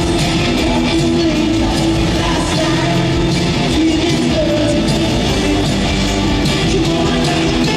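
Live rock band playing a song loudly and steadily, with guitar and a sung vocal line.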